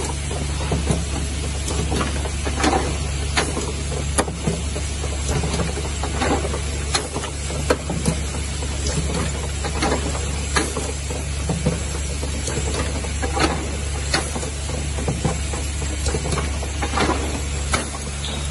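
Automatic perfume bottle filling and capping machine running: a steady low hum with frequent short clacks and hisses of air from its pneumatic cylinders as the stations work the bottles, several times a second at irregular intervals.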